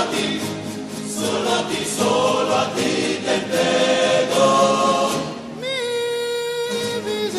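Rondalla music: a choir of voices singing together over string accompaniment, with one long held note near the end.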